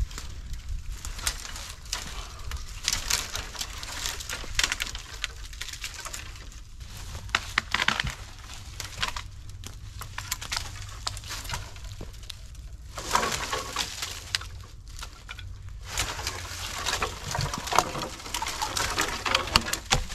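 Dry dead branches crackling, snapping and rustling as they are broken off a fallen tree and dragged free. There are irregular cracks throughout, and the densest bouts of crackling come about two-thirds of the way through and again near the end.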